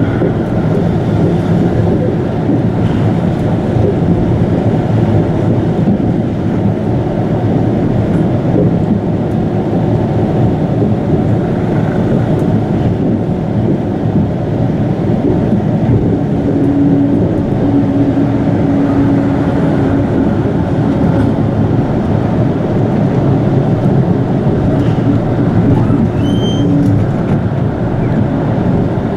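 Chiba Urban Monorail Urban Flyer 0-series suspended monorail running at speed between stations, heard from inside the car as a steady rolling rumble. A low steady hum rises above it for about ten seconds past the middle.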